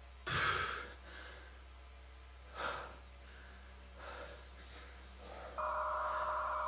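A person's sharp breaths, the loudest just after the start and another about two and a half seconds later. About five and a half seconds in, a steady high electronic tone starts and holds.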